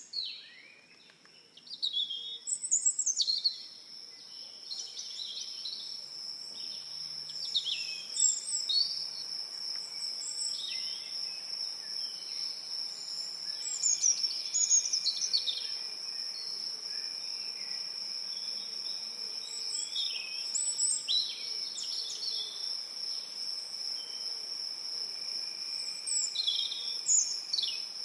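Birds singing, short chirps and whistled calls again and again, over a steady high-pitched insect drone.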